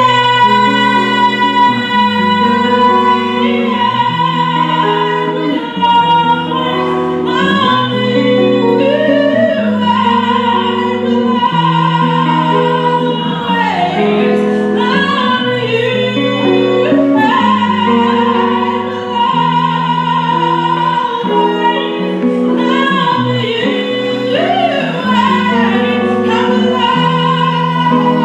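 A woman singing a slow song in long held high notes with vibrato over sustained accompanying chords.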